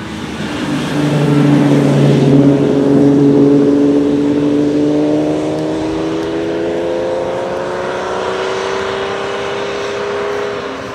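Classic Ferrari 250-series three-litre V12 race cars running up a wet hillclimb. One passes loudly in the first few seconds, then another approaches with its engine note rising steadily as it accelerates, over the hiss of tyres on wet tarmac.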